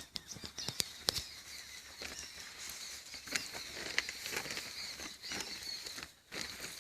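Scattered light clicks and rustling, with the sharpest click about a second in.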